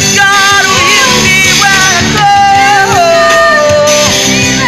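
A man singing a slow gospel song with electronic keyboard accompaniment, holding long notes that slide from pitch to pitch.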